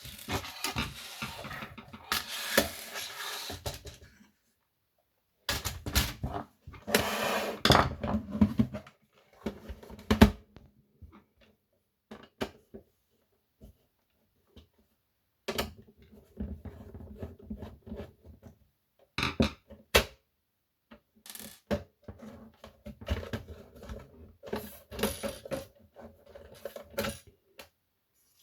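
Handling noise from opening a desktop tape dictation machine: rustling and scraping in two longer bursts, then scattered clicks and knocks of its plastic casing and small parts being worked and set down, with short pauses between.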